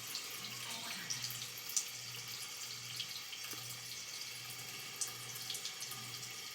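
Tap water running steadily into a sink, fairly faint, with small splashes and drips.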